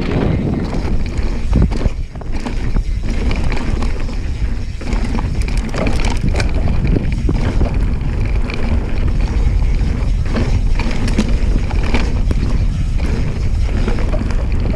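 A mountain bike descending a dirt trail at speed: wind buffeting the camera microphone, tyres rolling over dirt and roots, and the bike rattling and knocking over bumps.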